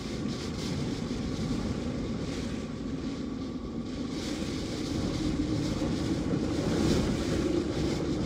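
Strong wind of Hurricane Sally blowing over the microphone in a steady rumble, gusting a little harder a few seconds in.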